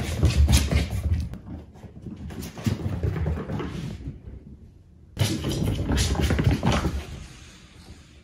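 Cats scampering on a laminate floor: paws thudding and scrabbling, with irregular knocks and bumps as they run and play. The noise drops away about four seconds in and picks up again a second later.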